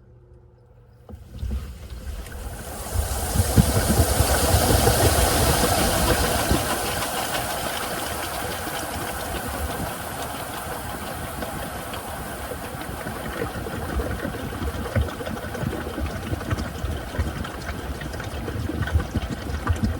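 Washing machine starting up about a second in, then running steadily: a low rumble with irregular pulses under a hiss that is strongest a few seconds in.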